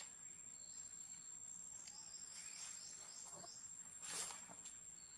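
Faint insect chirping: a steady high-pitched whine with a run of quick chirps, about four a second, in the middle. A brief rustle comes a little after four seconds in.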